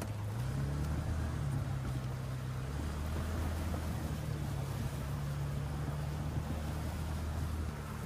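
Side-by-side UTV engine running as the vehicle drives through shallow, muddy river water, its pitch stepping up and down with the throttle. Steady water and tyre noise runs underneath.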